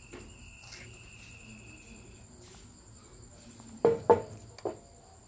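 Crickets chirping in a steady high trill, with a second, lower insect trill for the first two seconds. A few short knocks come about four seconds in.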